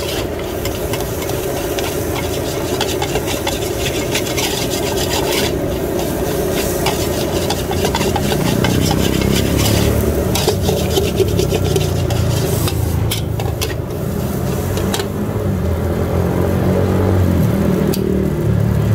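A metal spatula scraping and tossing fried rice around a large aluminium wok, over the steady sizzle of the frying. A low rumble joins in about halfway through.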